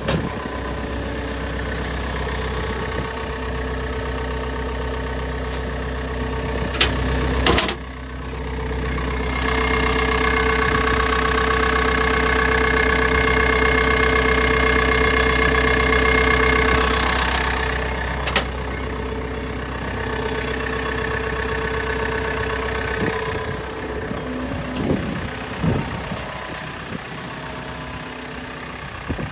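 Diesel engine of a JCB JS130LC tracked excavator running steadily. For several seconds in the middle it grows louder and a steady high whine rides over it. There are a couple of sharp clicks along the way.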